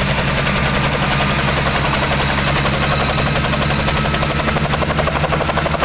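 Helicopter running close by, its rotor blades making a fast, even chop over a steady low engine hum, as it gets ready to take off.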